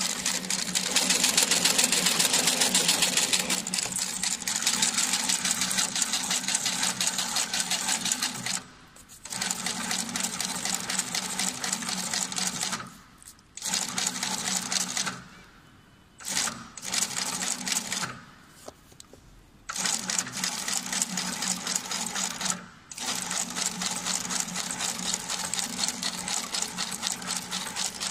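Shoe sole stitching machine stitching through a rubber cupsole: a rapid, even clatter of needle strokes over a steady motor hum. It stops and restarts several times.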